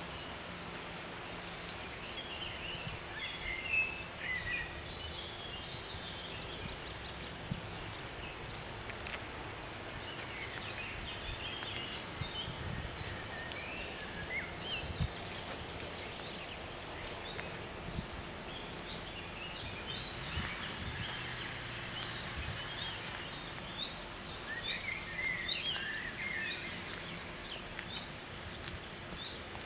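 Small birds chirping in short clusters of rapid calls over steady outdoor background noise, with a faint continuous hum underneath.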